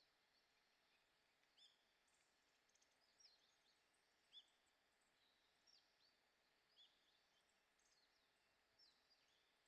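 Faint, thin chirping of small birds in the woods: short, high call notes, many of them falling in pitch, coming irregularly about once a second, with one louder chirp midway.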